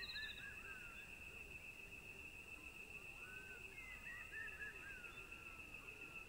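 Faint wild ambience: a steady, high insect drone throughout, with bursts of small bird chirps and twitters near the start and again about three to five seconds in.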